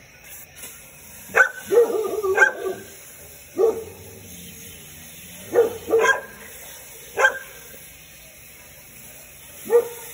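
A dog barking: short single barks, several close together in the first few seconds, then spaced out a second or more apart.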